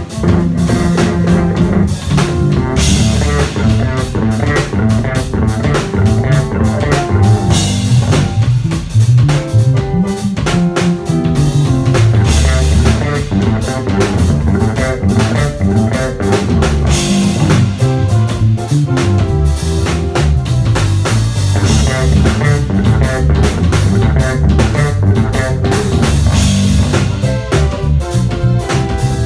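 Live instrumental funk jam played loud through a PA: two electric bass guitars over a drum kit.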